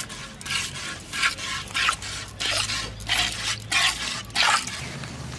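Milk squirting from a cow's teats into a metal bucket during hand milking: short hissing squirts, about two to three a second, as the hands squeeze in turn.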